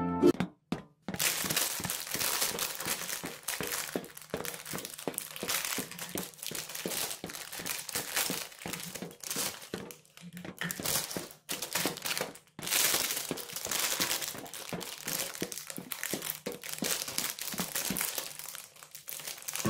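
Foil ice cream bar wrappers crinkling as they are handled, then torn open near the end.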